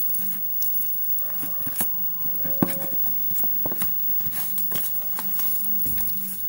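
Spatula stirring thick flour batter in a container: irregular taps and scrapes against the sides, with wet squelches of the lumpy batter. A steady low hum runs underneath and stops near the end.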